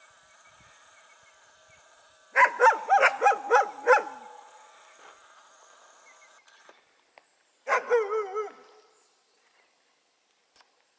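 Dogs barking: a quick run of about six loud barks, then a shorter burst of barks with a wavering pitch a few seconds later.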